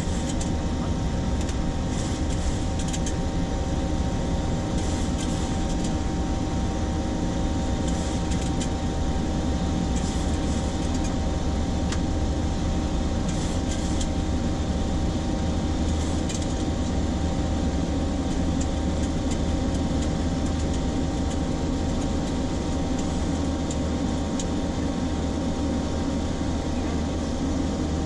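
Steady flight-deck noise of a Boeing 737-800 climbing after takeoff: a constant rush of air with a low engine drone beneath it, and a faint steady tone over it.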